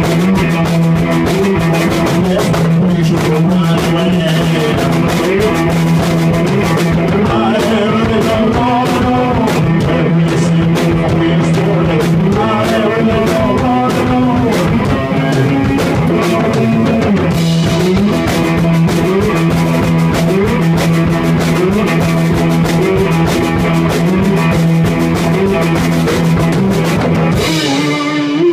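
Cigar box guitar played with a driving rhythm over a steady low drone note, with a steady percussive beat underneath. The tune stops on a final chord near the end.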